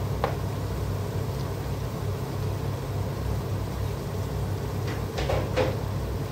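Steady low rumble of a kitchen with a pot cooking on a gas stove, broken by a light clack just after the start as a cleaver is set down on a plastic cutting board, then three light knocks a little over five seconds in.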